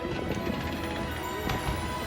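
Music playing, with a faint sharp crack about one and a half seconds in.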